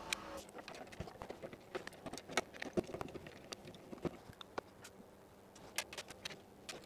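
Faint, irregular clicks and light clatter of small tools and parts being picked up and handled, with a few footsteps near the end.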